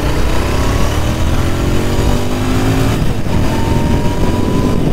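Royal Enfield Interceptor 650's parallel-twin engine accelerating under way, its pitch rising, dipping about halfway through as if at a gear change, then rising again. Wind rumble on the helmet microphone.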